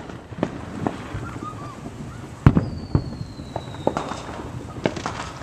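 Distant fireworks going off: scattered sharp bangs and pops of differing strength, the loudest about two and a half seconds in. Right after it a thin whistle slowly falls in pitch.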